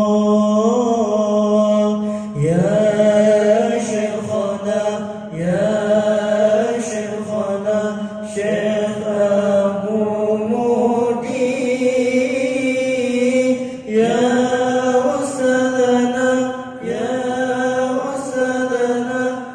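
A syair, a sung Malay-language religious poem, chanted in a slow melody with long held notes that slide between pitches, new phrases beginning every few seconds.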